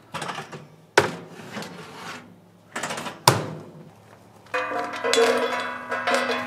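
Cooking clatter from the fish-shaped bread (bungeoppang) stall: metal knocks with two sharp clanks, from the cast-iron molds and tools being handled. About four and a half seconds in, background music with held notes comes in.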